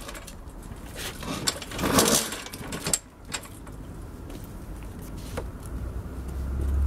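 Handling of a cordless-free, unstarted petrol lawnmower: plastic and metal parts clattering and clicking, with a busier rattle about two seconds in and a few sharp knocks later. A low rumble builds near the end.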